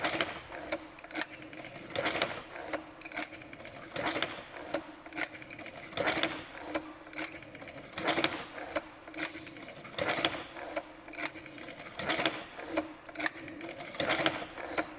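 Semi-automatic dumpling-making machine running: a mechanical clatter of clicks and knocks, with a heavier stroke about every two seconds, over a steady hum.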